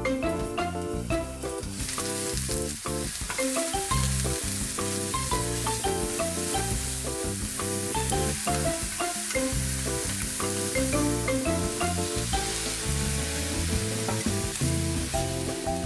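Food frying in oil in a pan, sizzling. The sizzle starts about two seconds in and cuts off near the end, with background music throughout.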